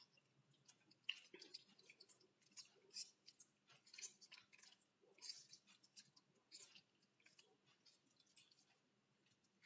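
Faint wet squelching of soaked, ground egg-carton pulp being squeezed by hand in a bowl of water: a string of soft, irregular squishes.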